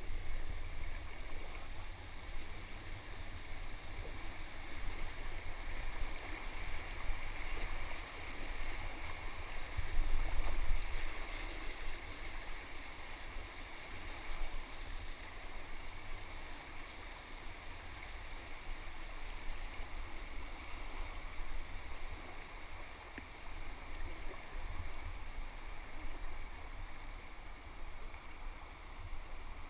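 River water rushing and splashing around an inflatable kayak as it runs through rapids, loudest about ten seconds in and easing to a softer riffle over the last part.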